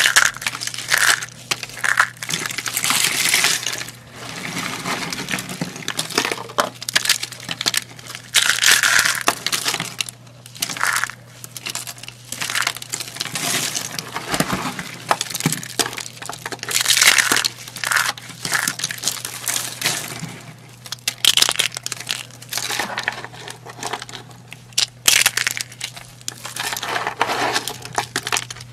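Dry carved soap curls and shavings crunched and crackled between the fingers, in irregular squeezes with short pauses between them. A faint steady low hum runs underneath.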